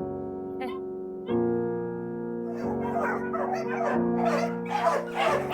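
Slow piano music with held chords. A little under halfway in, many dogs start barking at once over it, the barking getting denser and louder toward the end.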